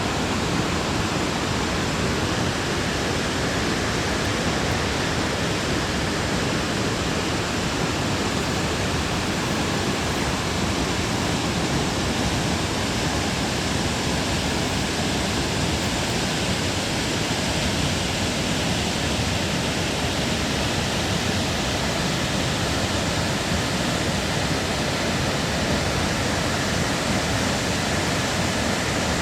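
Sanjō-no-taki waterfall: falling water rushing in a steady, unbroken wash of sound that neither rises nor fades.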